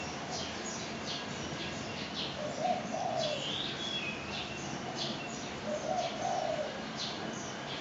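A dove cooing twice, low and soft, with small birds chirping throughout, over a steady even background noise.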